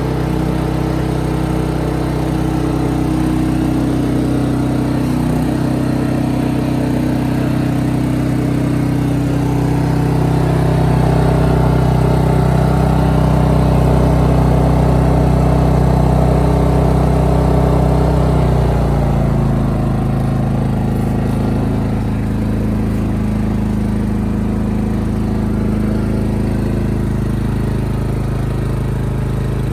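maXpeedingrods MXR3500W portable inverter generator running steadily, carrying a 1500-watt load. About two-thirds of the way through, its engine note settles slightly lower in pitch and a little quieter.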